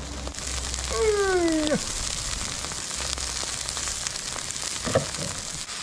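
Braising liquid in a large wok over a wood-fired earthen stove, simmering with a steady sizzle and hiss as a whole beef leg is lifted out of it. A short vocal sound about a second in and a single knock near the end.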